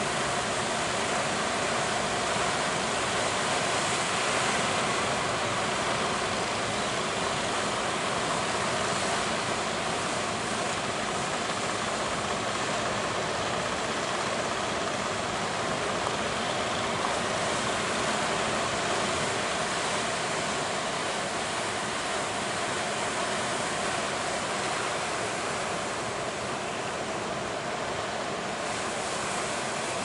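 Large ocean waves breaking in heavy surf, a steady, continuous roar of rushing water.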